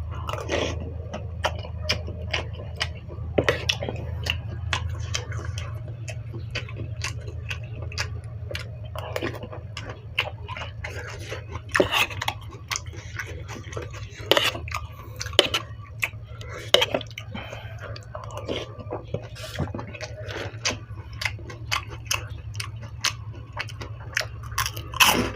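Close-up eating sounds: chewing and biting mouthfuls of stewed-pork noodle soup, with irregular clicks of utensils against the bowl, over a steady low hum.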